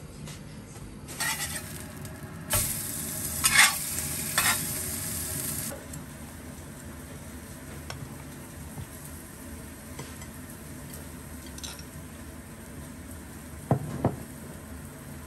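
Mackerel fillet sizzling as it sears in a dry stainless steel pan with no oil, with a few louder spits; the sizzle starts about a second in and cuts off suddenly after about five seconds. Near the end, a knife clinks twice against a glass jam jar.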